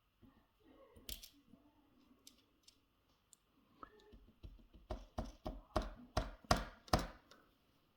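Small metal parts of a disassembled padlock cylinder clicking and tapping as they are handled. Scattered light clicks are followed, from about halfway, by a quick run of sharper clicks, about three a second.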